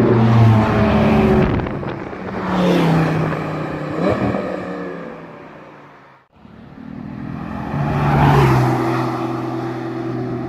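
Sports car engines revving and accelerating as the cars pass and pull away, their notes sliding in pitch. The sound cuts off suddenly about six seconds in, then another engine note builds up and holds steady.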